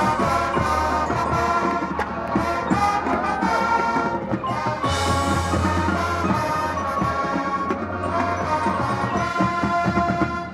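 Marching band playing: brass section with percussion in full ensemble. There is a loud accent about five seconds in, where the low brass and percussion swell.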